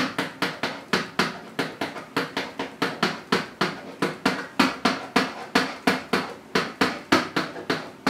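Rapid, fairly even knocking, about five sharp knocks a second, each dying away quickly.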